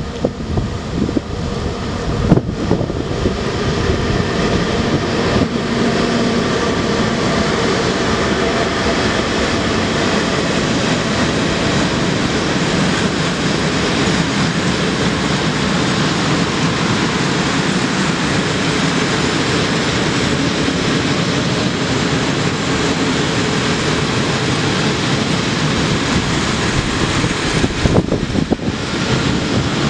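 Freight train hauled by an electric locomotive passing, its long string of open wagons making a steady loud rumble and clatter of wheels on rails, with a few sharp knocks about two seconds in, about five seconds in, and near the end.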